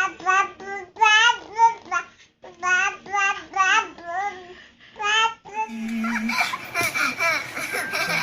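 A young child's high-pitched, sing-song babbling: short repeated syllables in quick runs, sliding up and down in pitch, the way a baby copies 'blah blah blah'.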